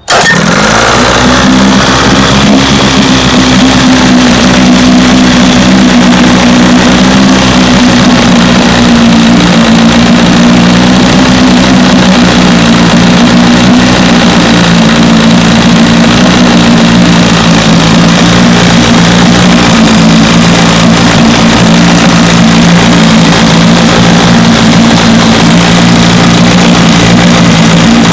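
1973 Johnson 25 hp two-stroke outboard running steadily. It comes in abruptly and picks up slightly in the first second. Its bottom cylinder is losing spark intermittently, a fault the owner suspects is in the breaker points.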